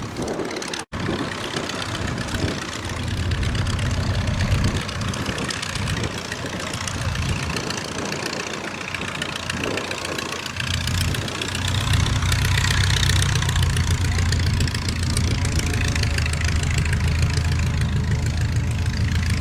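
Vintage trainer biplane's piston engine idling with a steady low drone under a hiss of wind noise, growing louder about ten seconds in. The sound cuts out for an instant about a second in.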